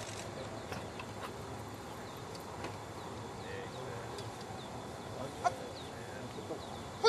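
Outdoor field ambience with small birds chirping faintly. A short, sharp pitched call sounds about five and a half seconds in, and a louder one comes right at the end.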